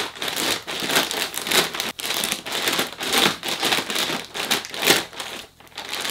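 Clear plastic grow bag of straw-pellet substrate and grain spawn crinkling as gloved hands fold and shape it: a dense run of rustles that eases near the end.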